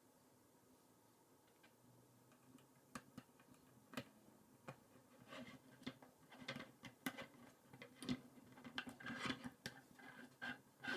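Plastic K'NEX rods and connectors clicking and clattering as they are handled and snapped together. A few separate clicks begin about three seconds in and grow into busier clicking from about halfway.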